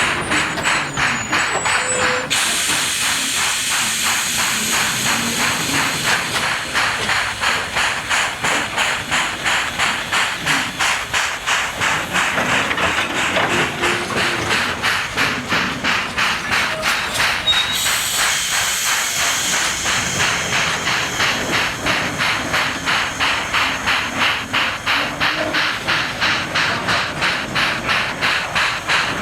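JS-class 2-8-2 steam locomotive working hard, with a steady, quick exhaust beat of about three chuffs a second under a continuous hiss of steam. The hiss grows louder about two seconds in and again about eighteen seconds in.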